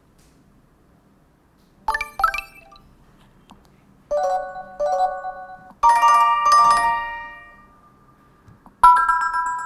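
Google Pixel 3a XL ringtones from its minimal melody set: short, clean electronic chime phrases of a few bell-like notes. A quick two-note figure comes about two seconds in, then longer ringing chords around four, six and nine seconds in, each dying away.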